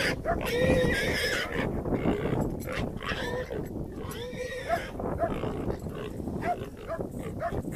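Pig squealing in a string of short, harsh cries while dogs bite and hold it.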